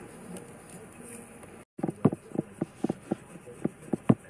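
Bare hand rubbing back and forth on a car's rear window glass: a quick, uneven series of short rubbing strokes, about three or four a second, starting a little under two seconds in after a quieter stretch.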